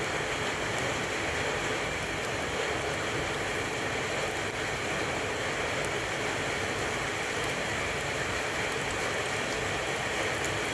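Flour-coated potato patties (perkedel) sizzling steadily in hot oil in a wok, with small crackles through the sizzle.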